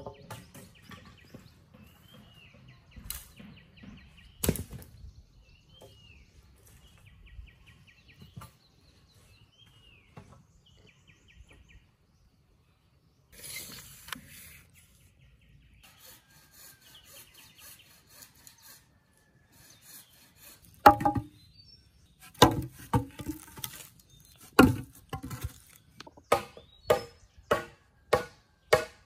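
Hand chopping into a wooden log: scattered light knocks at first, then from about two-thirds of the way through, hard blows that settle into a steady rhythm of about two strikes a second. A few bird chirps can be heard in the quieter first half.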